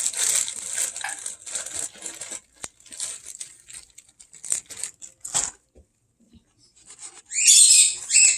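Packing paper rustling and crinkling as it is handled and stuffed into a cardboard box. It is dense at first, thins to scattered crackles, and has a louder crinkling burst near the end.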